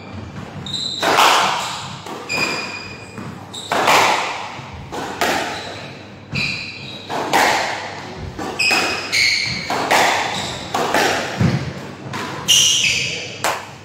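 A squash rally: the ball smacked by racquets and off the court walls, a sharp impact about every half-second to second with a short ring after each, mixed with brief high-pitched squeaks of court shoes on the wooden floor.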